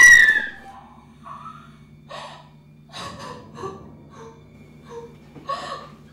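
A person gasping and breathing hard in uneven, ragged breaths, just after a short vocal cry that tails off at the very start. A low steady hum runs underneath.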